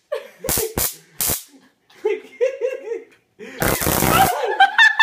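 Handheld stun gun crackling as it arcs: a few short, sharp zaps in the first second and a half, then a longer crackling burst of about two-thirds of a second near four seconds in. Laughter comes in between the zaps and after them.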